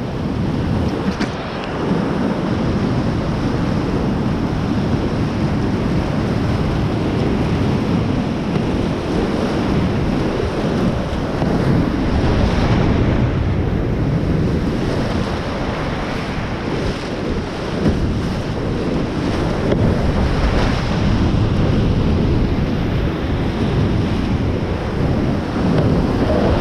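Whitewater rapids rushing steadily around a kayak running them, with wind noise on the microphone.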